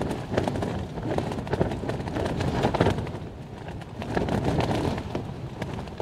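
Strong wind buffeting a Helm Compact 1 tent, the fabric flapping in gusts that swell and ease, with sharp irregular ticks of rain hitting the flysheet.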